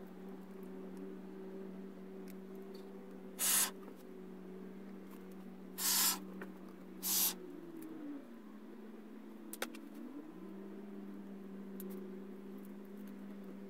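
Three short hisses of expanding foam spraying from an aerosol can's nozzle, one after another, over a steady low hum. The hum drops in pitch and fades a little past the middle, then comes back. There is one sharp click shortly after.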